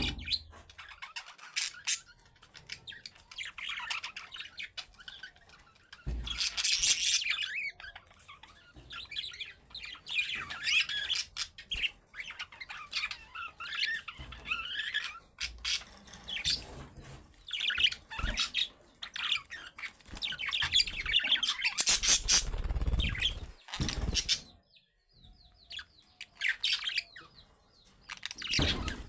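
Budgerigars chirping and chattering in quick bursts with short pauses, with occasional sharper squawks. A louder, fuller burst comes about three-quarters of the way through.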